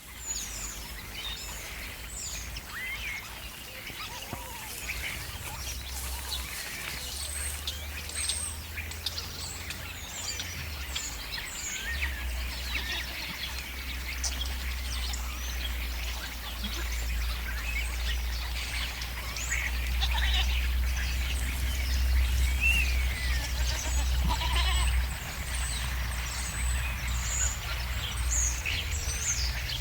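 Goats bleating among a flock of European starlings chattering and whistling with many short, high calls, over a steady low rumble.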